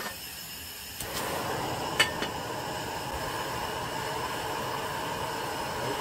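Cooking oil poured from a plastic jug into a stainless-steel pot: a steady pouring hiss that starts about a second in, with one sharp click about two seconds in.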